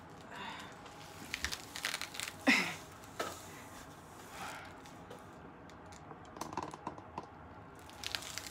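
Rustling and handling noises: scattered light clicks, scrapes and crinkles, with one louder scraping squeak about two and a half seconds in that slides down in pitch.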